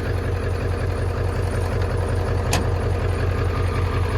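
Diesel pickup engine idling steadily, running again after water in its modules had made it die. A single sharp click about two and a half seconds in.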